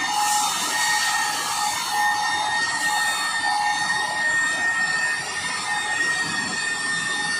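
Electric car polisher running with a steady high whine while its foam pad buffs a car's painted hood.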